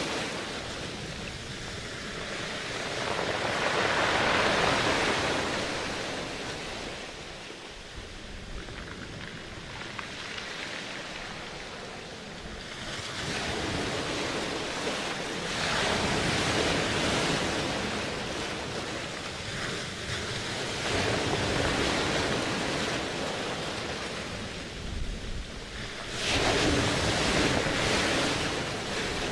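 Ocean surf: waves breaking and washing in, swelling and falling back every several seconds, with some wind.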